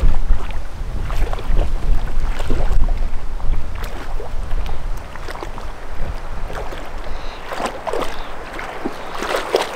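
A border collie wading through a shallow river, its legs splashing and sloshing in short, irregular strokes. Wind rumbles on the microphone for about the first half.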